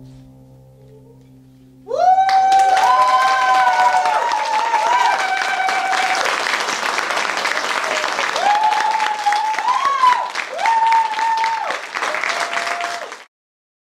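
The last notes of soft music fade out, then about two seconds in an audience breaks into loud applause, with several long, high-pitched held vocal calls rising over the clapping. The applause cuts off suddenly near the end.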